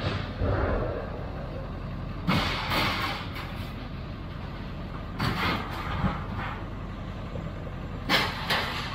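Ford F-350 diesel pickup's engine running at low speed, heard from inside the cab as a steady low drone. Four short, louder noisy bursts come roughly every two to three seconds.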